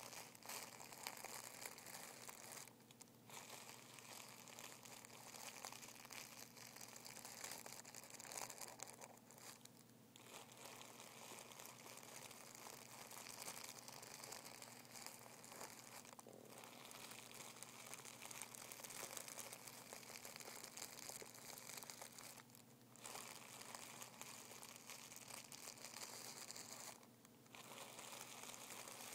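Fingers rubbing and crinkling a sheet of tissue paper, a faint continuous rustle broken by about five short pauses.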